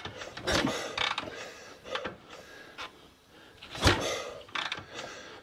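1965 BSA Lightning Clubman's 650 cc parallel-twin engine being kicked over from cold without catching. Irregular clunks and clatter come from the kickstart lever and the engine turning over, the loudest a little before the end.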